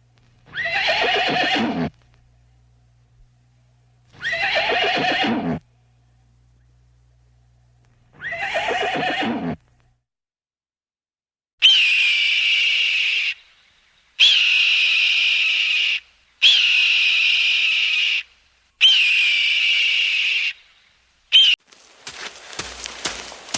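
A horse whinnying three times, each neigh about a second and a half long and falling in pitch. These are followed by five long, steady, high-pitched calls of about two seconds each, and a short one. A quick clattering patter begins near the end.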